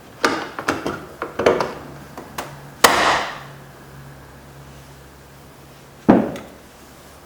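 Clicks and knocks of work on a car door, then a loud bang about three seconds in that rings briefly, and a second heavy, deeper thud about six seconds in.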